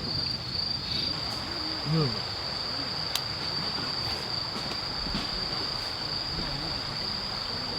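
Insects, likely crickets, chirring in one steady, unbroken high-pitched trill, with faint low murmuring voices underneath.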